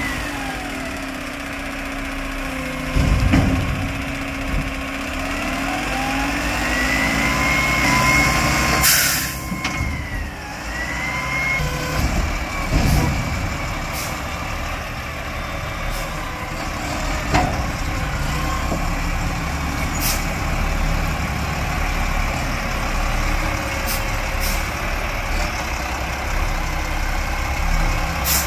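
McNeilus front-loading garbage truck working: the diesel engine runs and revs while the hydraulic arms whine, the pitch rising and falling as the forks lift the dumpster over the cab and lower it again. Loud metal bangs and clunks come from the dumpster and arms, the loudest about three seconds in, with a sharp noise about nine seconds in and short clunks or hisses every couple of seconds after that.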